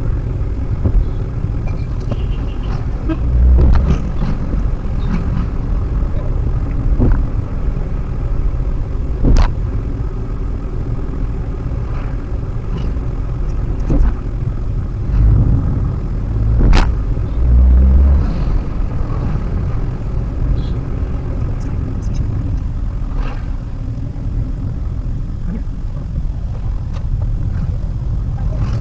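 Cabin noise of a Maruti Suzuki WagonR being driven: a steady low road-and-engine rumble, with a few heavier thumps and sharp knocks as the car goes over bumps.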